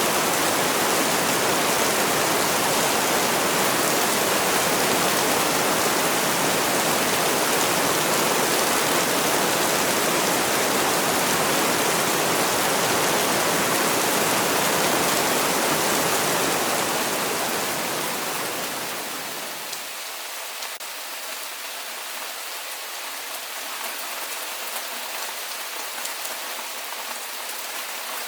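Heavy rain falling in a steady, even hiss. About two-thirds of the way through it fades over a few seconds to lighter rain, with the low rumble gone and single drops standing out more.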